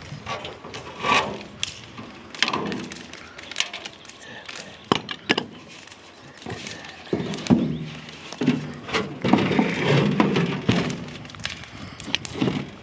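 Steel clamps being set and tightened on a sheet-metal patch on a wheelbarrow body: irregular metallic clicks, knocks and scraping, busiest in the second half.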